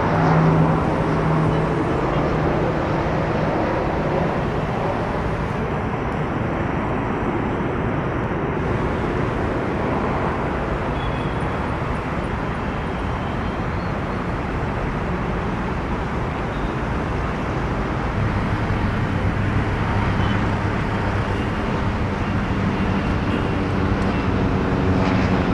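Steady outdoor vehicle and engine noise, with a low engine hum that sets in well past halfway through.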